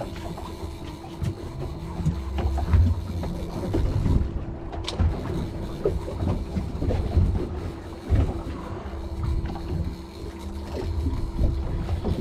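Wind buffeting the microphone on a boat at sea, with a steady low hum and small clicks from a conventional fishing reel being worked.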